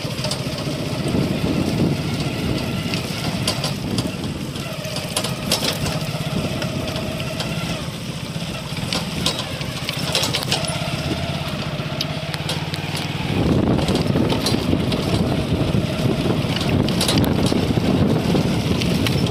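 Motorcycle engine running steadily while riding over a rough road, with scattered knocks and rattles. It grows louder and rougher about two-thirds of the way through.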